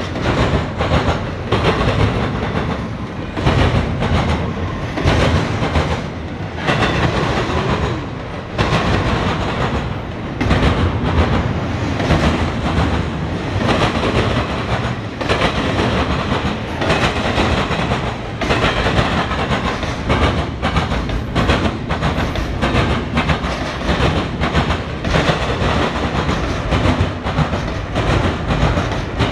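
Norfolk Southern double-stack intermodal train of container well cars rolling past close by: steady noise of steel wheels on rail, broken by frequent irregular clacks as the wheel sets cross rail joints.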